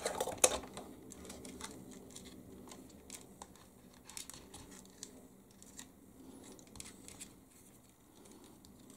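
Light clicks and rustles of wires and plastic parts being handled as wiring is folded into the chassis of a 1/16 scale RC model truck, with a sharper click about half a second in.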